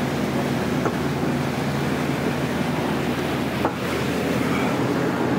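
Passenger boat's engine running with a steady low hum under a constant rush of churning wake water and wind, with a brief dip in the sound about three and a half seconds in.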